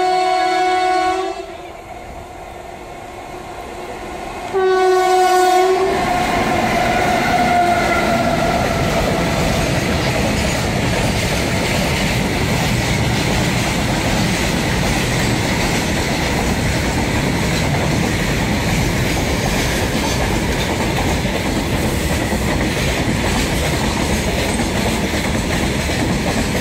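Twin WAG-5 electric locomotives sounding their horn: one blast ending about a second in, a second blast about five seconds in that trails off as the locomotives pass. Then the freight train rolls through with a loud, steady rumble of wagons on the rails.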